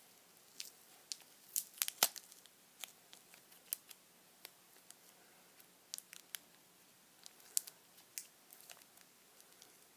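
Faint, irregular light clicks and rustling of small plastic toy pieces being handled.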